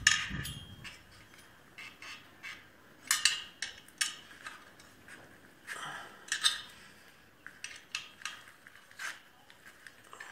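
Metal clinks and taps of hand tools and bolts against a small engine's casing as a cover is bolted on. The clicks come irregularly, a few seconds apart, with louder clanks about three seconds in and past the middle.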